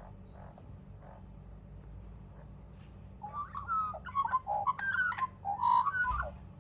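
Australian magpie calling: faint, soft repeated notes, then about three seconds in a loud run of warbling notes that glide up and down.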